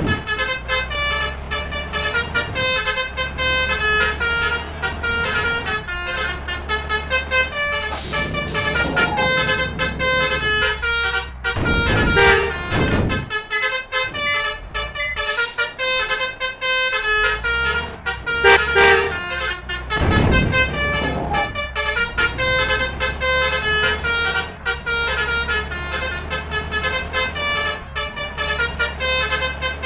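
Basuri 'telolet' musical bus horns playing quick tunes of short tooting notes, over a steady low engine hum, with brief louder rushes of noise around 12 and 20 seconds in.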